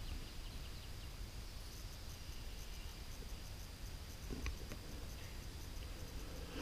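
Faint woodland ambience: a steady, high insect trill over low background rumble, with a couple of small clicks about four and a half seconds in.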